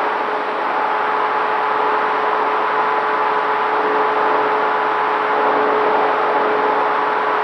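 Dynam T-28 Trojan RC plane's electric motor and propeller in flight, heard from its onboard camera: a steady whine at a constant pitch over rushing air noise.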